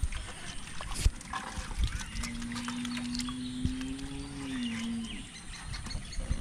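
Hands splashing and groping in shallow muddy water, with a sharp splash about a second in. Birds chirp, and in the middle a low, drawn-out animal call lasts about three seconds and drops in pitch at its end.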